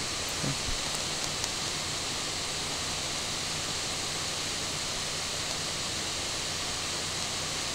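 Steady hiss from the recording's microphone with a faint low hum, and a few small faint clicks in the first second and a half.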